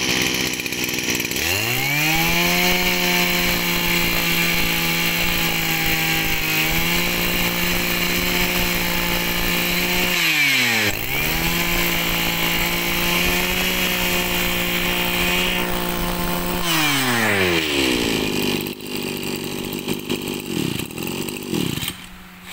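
Mitsubishi TL201 brush cutter's 20cc two-stroke engine revved up and held at high speed, the throttle let off briefly about ten seconds in and opened again, then released back to idle near the end.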